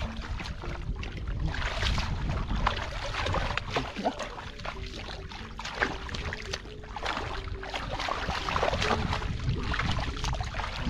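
Hands splashing and sloshing through shallow muddy paddy water while groping for catfish, with many irregular splashes.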